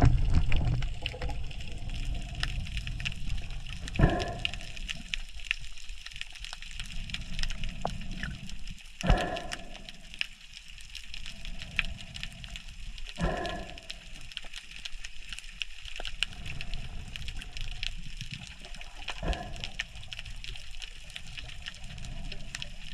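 Underwater ambience picked up by a camera under the sea during a spearfishing dive: a steady hiss full of fine crackling, with four dull knocks spaced four to six seconds apart.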